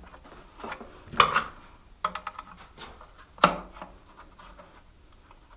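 Hand work on small metal parts of a motorbike frame: scrapes and light clicks, with two sharper knocks, one about a second in and a louder one about three and a half seconds in.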